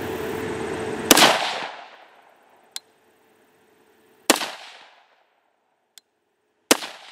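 Three AR-15 rifle shots, 55-grain V-Max rounds through a 20-inch 1-in-9 twist barrel, spaced about three seconds apart, each ringing out and dying away over about half a second. A steady hiss runs up to the first shot, and two faint clicks fall between the shots.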